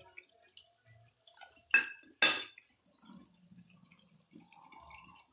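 Two sharp clinks of hard kitchenware knocking together, about half a second apart, each ringing briefly, followed by faint handling noises.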